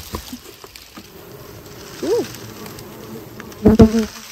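Honey bees buzzing around the hive while a metal hive tool pries apart two stacked wooden hive boxes. A few sharp cracks near the end as the boxes break free.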